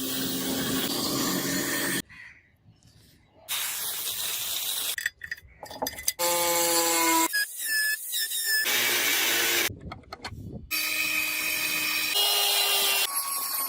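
Metalworking tool noise in short, abruptly cut segments, some with a high squealing tone, with brief near-silent gaps between them.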